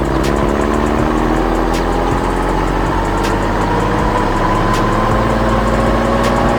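Construction vehicle engine running steadily, its pitch rising slowly.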